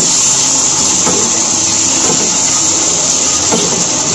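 Potato pieces and freshly added wet tomato pieces sizzling steadily in hot oil in a non-stick pan, with a few light scrapes of a wooden spatula stirring them.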